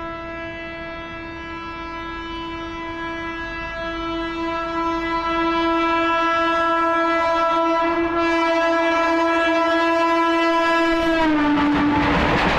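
WAP4 electric locomotive's horn sounding one long continuous blast, growing louder as the locomotive approaches. About 11 s in, the horn's pitch drops slightly as the locomotive passes, and the loud rushing noise of the train going by follows.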